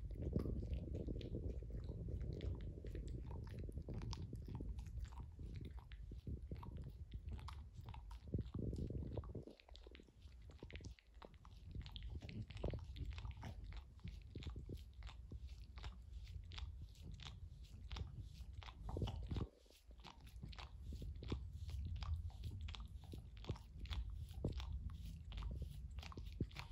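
A French Bulldog licking and nibbling a bare foot up close: a fast, irregular run of wet smacking clicks over a low rumble.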